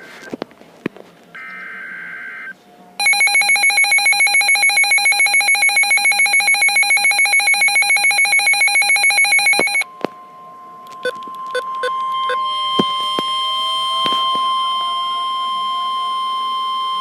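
Emergency alert signal for a severe thunderstorm warning: a short burst of data screech, then a loud, rapidly pulsing electronic alarm for about seven seconds. It is followed by a steady single-pitch alert tone, with a few clicks near its start.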